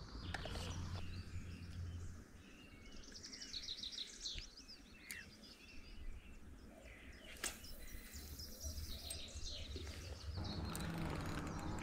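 Faint outdoor ambience with several birds chirping and singing in short phrases, and a single sharp click about seven seconds in.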